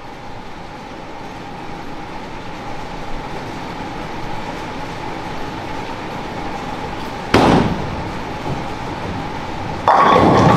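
Bowling ball rolling down the lane with a steady rumble that slowly grows louder, then two sudden loud crashes about two and a half seconds apart as pins are struck.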